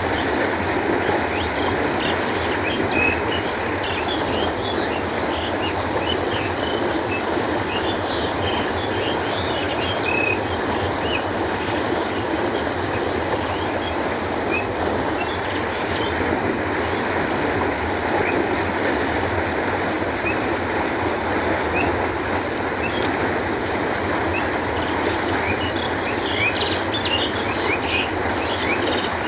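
Canal water flowing steadily with an even rushing sound, with many small bird chirps scattered over it.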